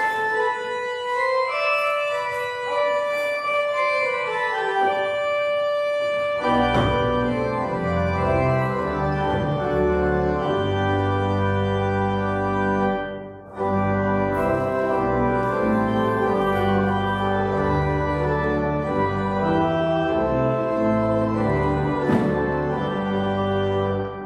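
Church organ playing the postlude: sustained chords, with upper parts alone at first and deep bass notes coming in about six seconds in; a brief break in the sound near the middle before the playing carries on.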